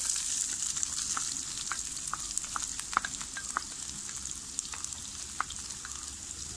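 Chopped onions sizzling in hot oil with cumin, mustard seeds and garlic in a non-stick frying pan, as a wooden spatula scrapes and stirs them. A steady hiss runs under scattered sharp clicks and pops, the loudest about three seconds in.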